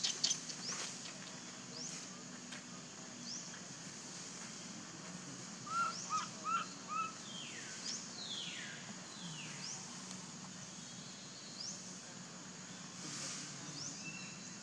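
Forest ambience: a steady high insect drone with scattered short chirps. About six seconds in comes a run of four quick calls, followed by falling whistled sweeps. A few sharp clicks at the very start.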